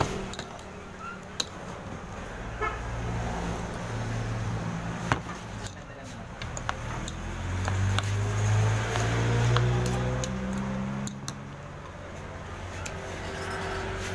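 Metal fork and spoon clinking against a ceramic bowl of noodle soup in scattered sharp clicks. Under it a passing vehicle engine hums, growing louder and shifting in pitch in the middle of the stretch before fading.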